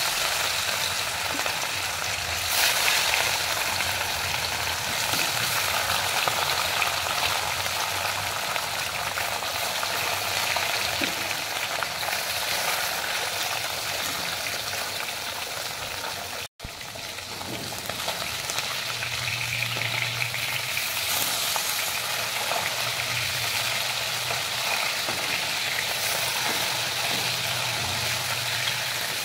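Fish pieces frying in hot oil in a steel kadai, with a steady, dense sizzle that breaks off for an instant about halfway through.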